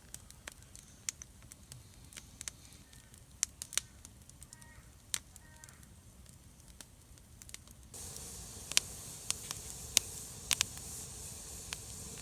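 Wood campfire crackling, with scattered sharp pops. About eight seconds in, a louder steady hiss joins the pops.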